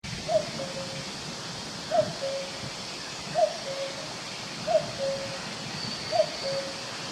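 Common cuckoo calling its two-note "cu-coo", a higher note dropping to a lower, longer one, repeated five times at an even pace of about one call every one and a half seconds.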